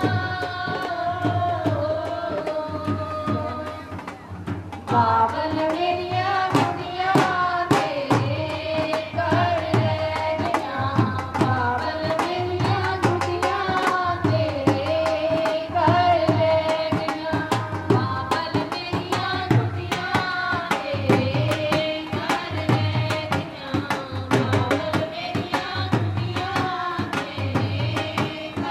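A group of women singing a Punjabi folk song through a microphone, with a dhol drum keeping a steady beat. The singing drops away briefly about four seconds in and picks up again a second later.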